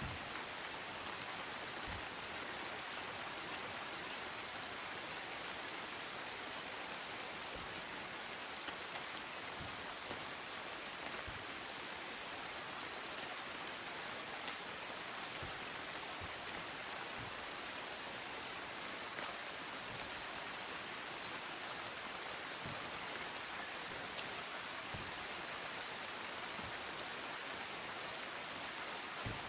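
Steady monsoon rain falling, an even hiss of rain with scattered heavier drops striking.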